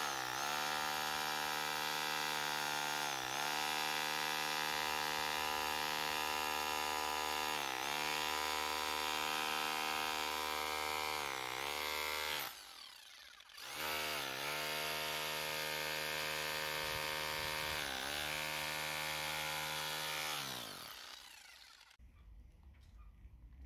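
Bosch PBH 2100 RE SDS-plus rotary hammer drilling into concrete: a steady motor whine whose pitch dips briefly each time the bit bogs down under load. It stops for about a second midway, starts again, then winds down near the end.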